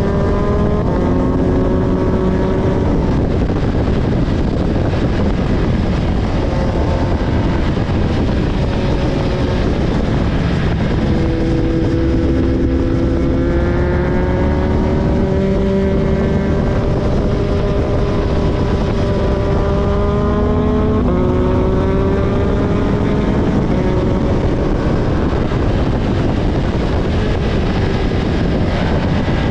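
A vehicle engine running hard throughout. Its pitch climbs slowly and drops sharply at gear changes about 11 and 21 seconds in, over a heavy, continuous low rumble.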